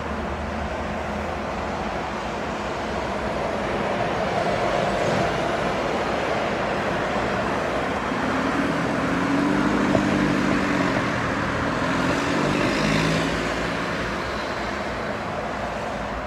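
Steady traffic on a multi-lane road, with a bus engine passing that swells through the middle and then fades.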